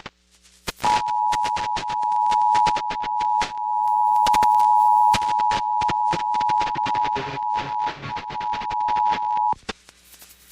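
Emergency Alert System two-tone attention signal, 853 Hz and 960 Hz sounded together as one steady harsh tone. It starts about a second in, lasts close to nine seconds and cuts off near the end. Steady crackling clicks run underneath.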